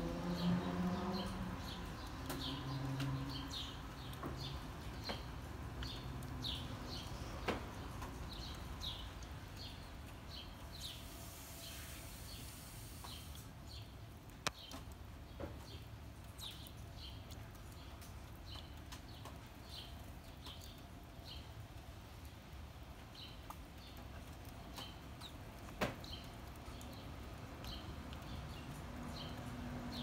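Sparrow chirping steadily, a short high cheep once or twice a second, with a low hum in the first few seconds and three sharp ticks scattered through.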